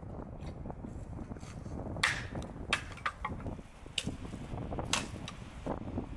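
Axe chopping firewood: several sharp, irregularly spaced strikes on wood, starting about two seconds in.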